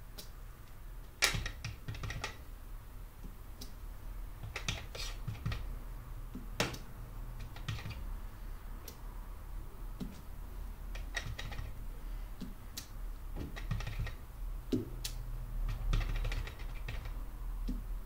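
Small wood-mounted rubber stamp pressed again and again onto paper on a tabletop: irregular light taps and clicks, a dozen or so. The sharpest come about a second in and at about six and a half seconds.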